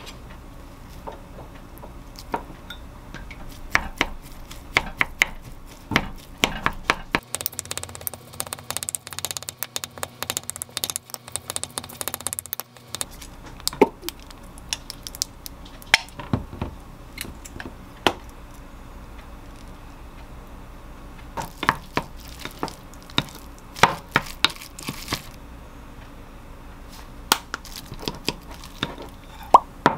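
Wooden spoon knocking, tapping and scraping against a glass mug as boiled egg and crab stick pieces are mashed and stirred into a sauce. The clinks are irregular, with a dense run of small taps a little before the middle and more clusters of knocks near the end.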